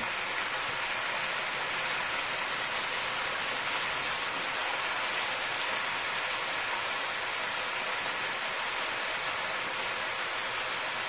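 Raw chopped chicken sizzling steadily in hot oil with fried onion and seasonings, just after being added to the pot; an even, rain-like hiss.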